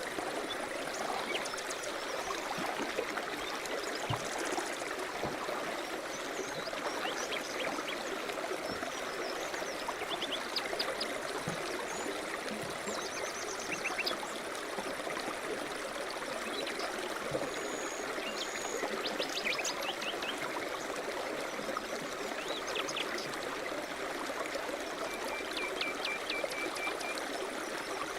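River rapids rushing steadily, with small birds chirping and trilling now and then above the water.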